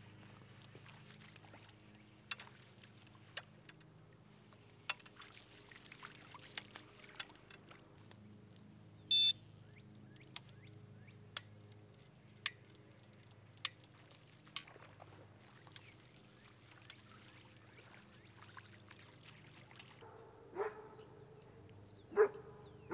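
Quiet lakeside ambience: faint lapping water with scattered light clicks and one short, high chirp about nine seconds in. Near the end, a dog gives a few short whines.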